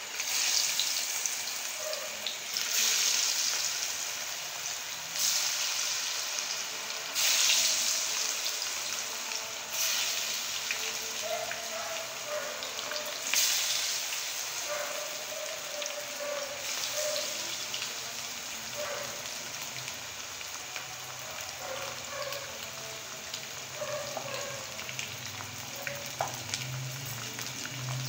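Besan-battered fish pieces dropped one at a time into hot oil in a kadai, each entry setting off a loud surge of sizzling, about six surges over the first half, then steady deep-frying sizzle as the pieces cook.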